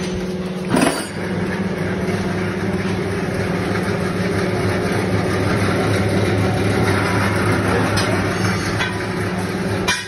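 Electric dough-kneading mixer running, a steady motor hum as its hook turns in the empty stainless steel bowl. There is a single sharp knock about a second in.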